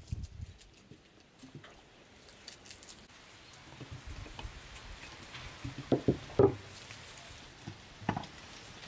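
Soft knocks and handling sounds as green tomatoes, beetroot pieces and herbs are packed by hand into large glass jars for pickling. Three short knocks stand out, two close together about six seconds in and another about eight seconds in.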